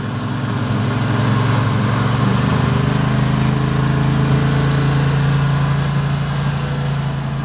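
Lawn mower engine running steadily, growing louder over the first second or so.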